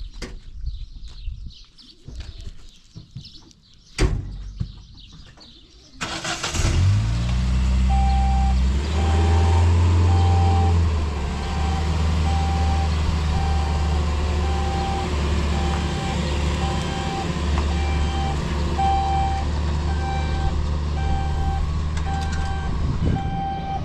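A large vehicle's engine starts about six seconds in and runs steadily, with a reversing alarm beeping about once a second. A single sharp knock comes before the engine starts.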